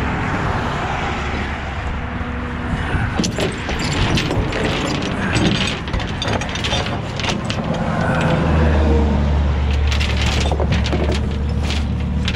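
Tow chain and hook rattling and clinking in many short clicks as they are hooked to a wrecked pickup's front suspension, over a truck engine idling with a steady low hum. About eight seconds in the engine hum grows louder.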